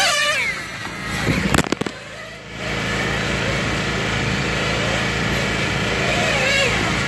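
Nitro-engined RC race cars running their high-pitched whine past the microphone, the pitch falling as they go by. About a second and a half in come a few sharp knocks of the camera being handled. After that the engine noise carries on as a steady rumble, with another car's whine rising and falling near the end.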